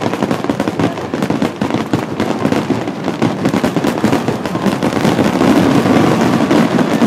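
Finale barrage of aerial firework shells bursting in quick succession, many overlapping bangs with no gap between them, growing louder about five seconds in.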